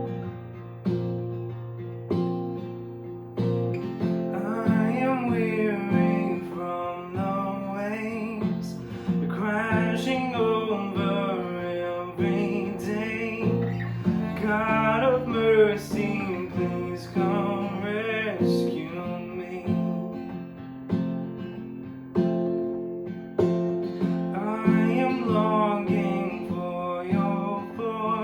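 Worship music: strummed acoustic guitar chords under a singing voice, the singing coming in about four seconds in and pausing briefly a little past the middle.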